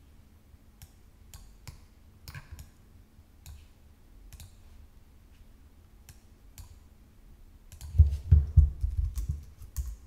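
Computer mouse and keyboard clicks, scattered single clicks, then a cluster of heavier, deeper thumps and clicks near the end, the loudest part.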